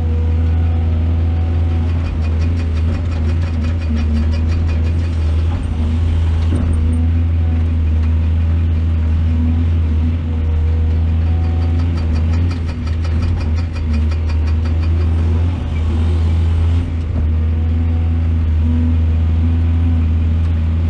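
Large excavator's diesel engine running steadily, with stretches of rapid ticking over it.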